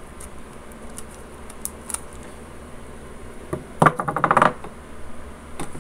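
Roll of silver duct tape handled on a wooden desk: a few light taps, then about four seconds in a short rapid crackling rasp of tape pulling off the roll.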